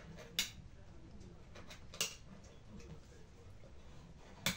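Three short, sharp clicks from kitchenware being handled at the table, roughly every two seconds, over a quiet room.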